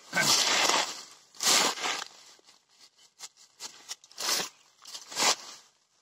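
Footsteps crunching through dry bamboo leaf litter, a crunch about every second, loudest near the start.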